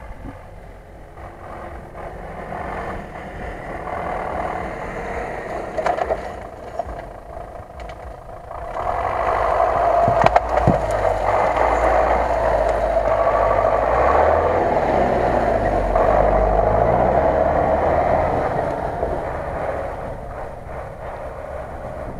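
GAZ-66 army truck engine under way in snow, growing louder as it approaches and drives close by, then fading as it moves off.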